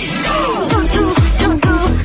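Electronic dance music with a steady beat of falling bass notes, about three a second, under a bending melodic line.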